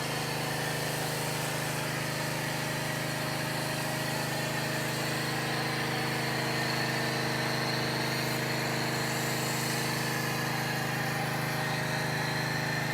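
Pressure washer running steadily with a foam cannon spraying soap: an even machine hum under a constant spray hiss.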